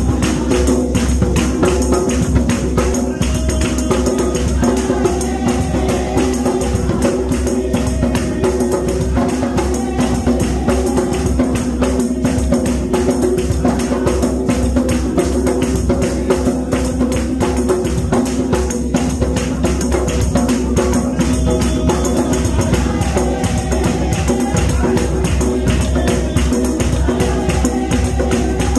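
Upbeat dance music driven by a fast, steady jingling percussion rhythm, with voices singing along, continuous and loud throughout.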